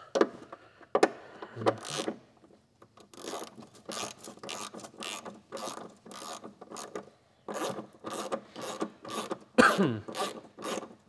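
Hand ratchet wrench clicking in quick strokes, about three a second, as a bolt is run on the rear suspension of a 2015 Jeep Cherokee. Near the end there is a short squeal falling in pitch, the loudest sound.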